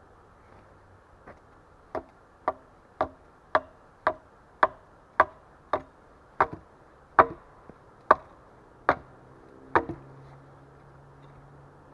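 Steady chopping blows of a tool into wood, about two strikes a second, each with a short ring, starting about two seconds in and stopping near ten seconds.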